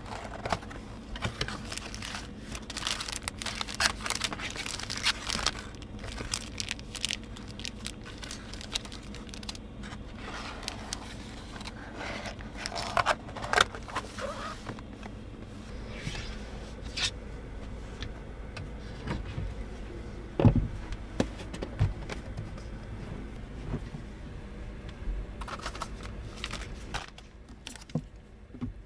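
Irregular rustling, crinkling and clinking of things being handled in a small enclosed space, with a heavier knock near the middle, over a steady low hum.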